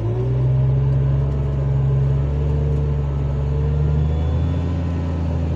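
Heavy-equipment diesel engine throttling up and running hard under load while pushing. It jumps in loudness at the start, then holds a steady, heavy drone.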